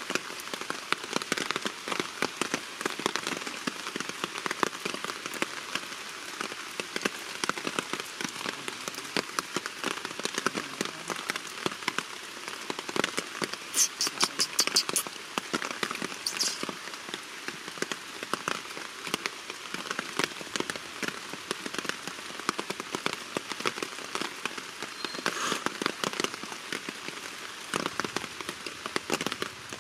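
Heavy rain falling steadily, a dense patter of drops. About halfway through there is a short run of rapid, high-pitched clicks.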